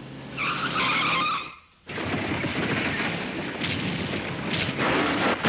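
Cartoon sound effects of a bulldozer: a skidding screech for about a second, a brief break, then a long noisy rumble that grows louder near the end.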